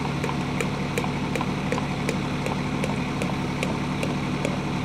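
An engine idling steadily, with a light, regular ticking over its hum.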